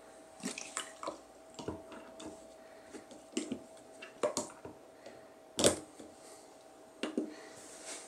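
Plastic water bottle with a cap adapter being turned upside down and pushed into a steam humidifier's water socket: a series of plastic clicks and knocks, the loudest about five and a half seconds in, with water moving in the bottle.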